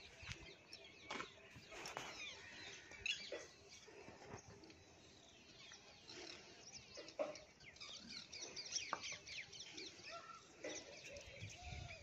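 Faint, busy chorus of many birds chirping with quick, high notes, with a few lower calls in the middle and near the end.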